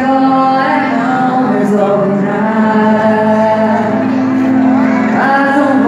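A woman singing solo into a handheld microphone, her amplified voice gliding between sustained notes over instrumental accompaniment with held low notes.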